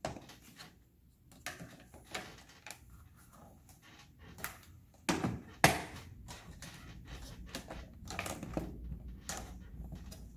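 Hard plastic toy-castle pieces clicking and knocking as they are handled and snapped into place. The clicks come irregularly, with the loudest knock about five and a half seconds in.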